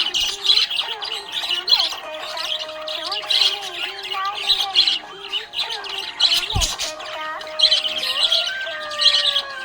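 Budgerigars chirping and chattering in quick repeated bursts over background music, with one sharp thump about two-thirds of the way through.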